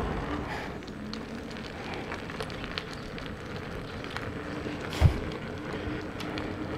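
Outdoor background noise heard while walking, a faint crackling hiss with scattered small ticks, and a single low thump about five seconds in.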